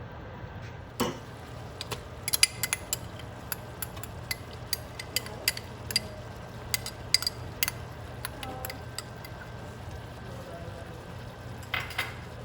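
A metal spoon or spatula clinking against a cooking pan as chicken is stirred into hot oil: sharp, irregular knocks that come thickly from about a second in, thin out past the middle, and return twice near the end, over a steady low hum.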